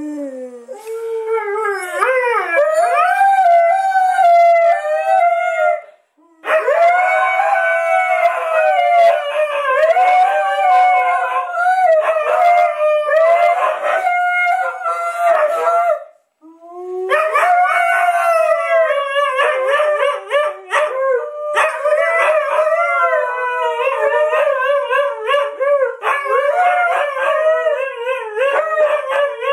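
Two Siberian huskies howling together in long, rising and falling howls that overlap, set off by a mobile phone's ringtone. The howling stops briefly about 6 seconds in and again about 16 seconds in, then resumes.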